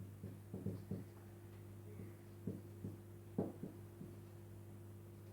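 Writing on a board: faint, irregular short taps and scuffs in small clusters, over a steady low electrical hum.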